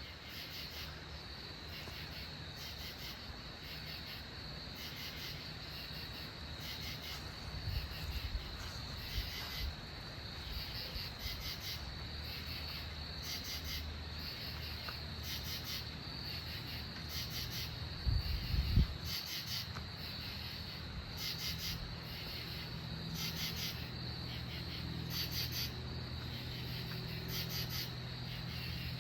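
Chorus of northern katydids calling back and forth, with short raspy pulsed calls repeating about once a second over a steady high insect trill. A low hum runs underneath, and a dull low thump comes about two-thirds of the way in.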